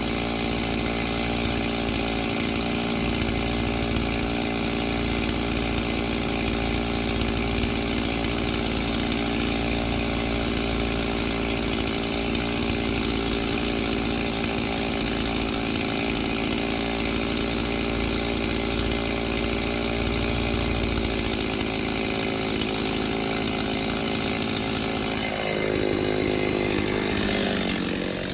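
Chainsaw running at full throttle, cutting through seasoned oak logs for firewood. About 25 seconds in, the engine note drops as the revs fall back toward idle at the end of the cut.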